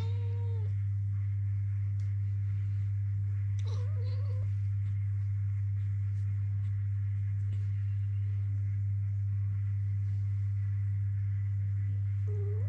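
Domestic cat meowing three times: once at the start, once about four seconds in and once near the end. A steady low hum runs underneath throughout and is louder than the meows.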